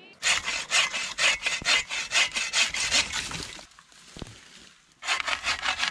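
Bow saw cutting through a branch in quick back-and-forth strokes, about three a second. It stops about three and a half seconds in and starts again about a second later.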